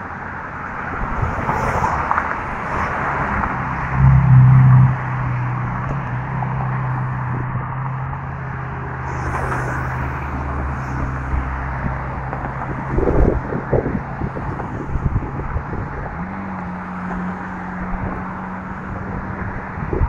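Road traffic on a bridge: a steady wash of passing vehicle noise with a low hum that steps up in pitch near the end. Wind buffets the microphone about four seconds in and again later on.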